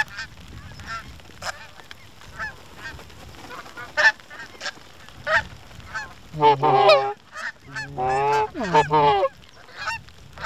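Canada geese honking, many short honks in quick succession, with two louder runs of honks about six and eight seconds in.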